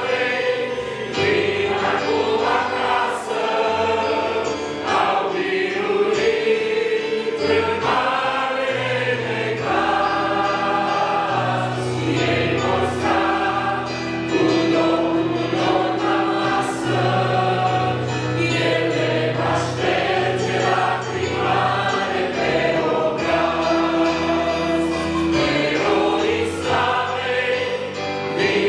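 Church congregation and worship team singing a hymn together in Romanian, with keyboard accompaniment holding long low notes beneath the voices.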